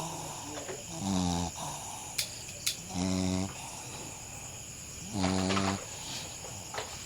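A Shih Tzu snoring out loud in its sleep: three pitched snores, each about half a second long, coming about two seconds apart.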